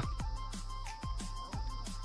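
Background music with a steady beat and a held tone.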